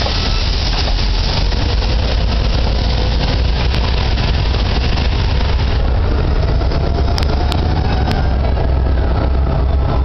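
Amtrak stainless-steel passenger cars rolling past close by: a steady, loud rumble of steel wheels on the rails, with a few sharp clicks in the second half.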